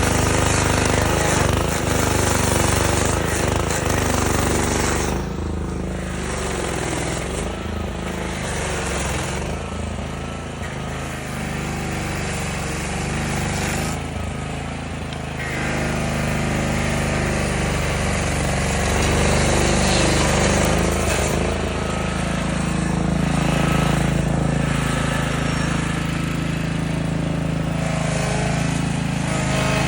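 Stump grinder's petrol engine running steadily under load while its cutting wheel grinds into a tree stump. The grinding noise swells and eases several times.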